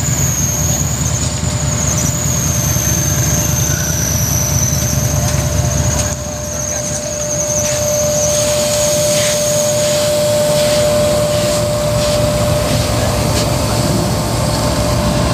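Pakistan Railways GEU-40 diesel locomotive running past at close range: a heavy engine rumble that eases about six seconds in. Over it there is a high, wavering squeal for the first ten seconds, and a steady lower tone from about six seconds in.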